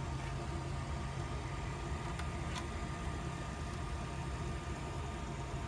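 A steady low machine hum, with two faint short clicks about two and a half seconds in.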